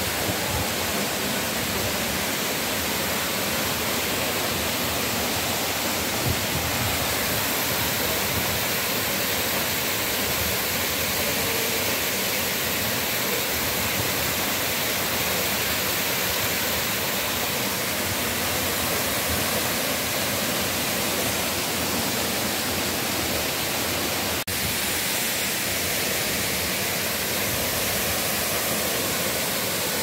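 Waterfall cascading down a rock face: a steady, unbroken rush of falling water.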